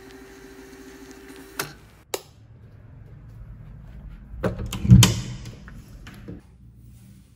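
A few sharp clicks and a short steady hum, then a door's lever handle turned and the latch clicking as the door opens, with a thump about five seconds in as the loudest sound.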